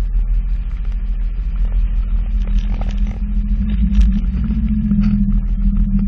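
Sea-Doo jet ski engine running steadily at low revs, its pitch edging up slightly about four seconds in. Short knocks scattered over it throughout.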